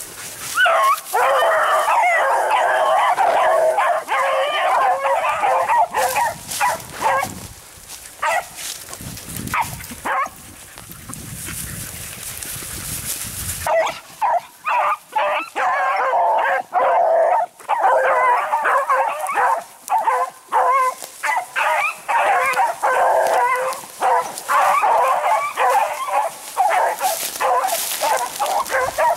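Pack of rabbit beagles baying together on a scent trail, several hound voices overlapping. The chorus thins to a few calls for several seconds near the middle, then the pack opens up again in full cry.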